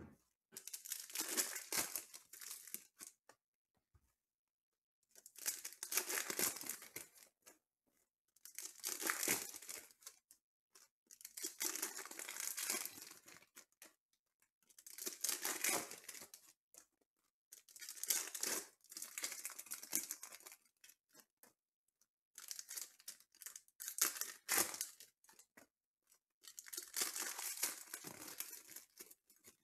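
Foil-wrapped Panini Prizm football card packs being torn open and crinkled, one after another, in about eight or nine bursts of rustling a few seconds apart.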